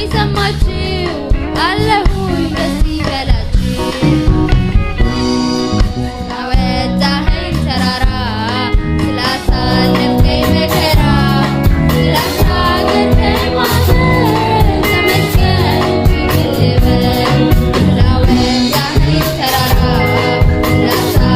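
Gospel song: voices singing over a band with a steady beat.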